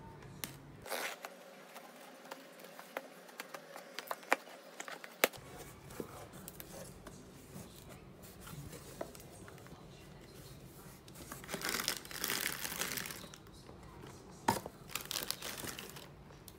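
Scissors scratching and clicking along the packing tape of a cardboard box, then cardboard flaps and plastic bubble wrap rustling and crinkling as the box is opened and the boxes inside are handled, with one sharp knock near the end.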